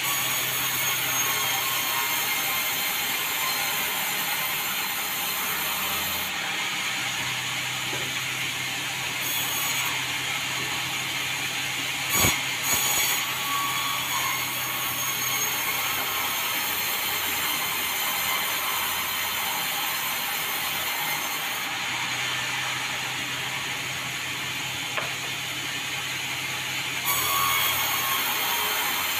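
Portable sawmill running steadily while sawing meranti timber, its hum changing a few times, with one sharp knock about twelve seconds in.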